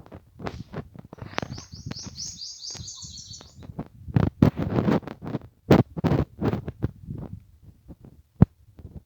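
A bird sings a rapid series of high, repeated chirps for about two seconds, starting a second or so in. Irregular rustling and low thumps run throughout and grow louder in the second half.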